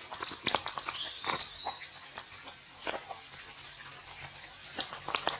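A macaque mother and her nursing infant at close range: a run of short wet clicks and smacks, with a brief high squeak about a second in.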